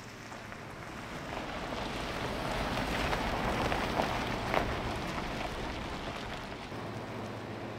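Pickup truck driving slowly past close by on gravel: low engine hum and tyres crunching over the stones, growing louder to a peak about halfway through with a couple of sharp pops of gravel, then easing off.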